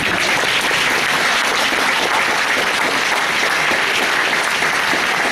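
Audience applauding steadily in a large hall, a dense even clapping.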